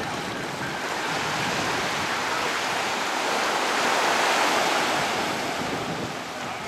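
Surf washing ashore with wind buffeting the microphone: a steady rush that swells to its loudest around the middle and eases near the end.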